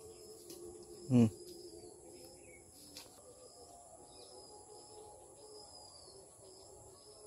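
Birds chirping over a steady, high-pitched drone of insects. About a second in there is one brief, loud sound that slides quickly down in pitch.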